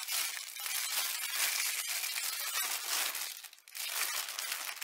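Clear plastic sleeve of bagged diamond-painting drills crinkling as it is handled and turned in the hands, with a brief pause about three and a half seconds in.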